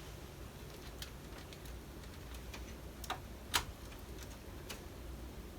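A few scattered small clicks and taps, the loudest about three and a half seconds in, from hands working on computer parts inside a PC case, unplugging power connectors.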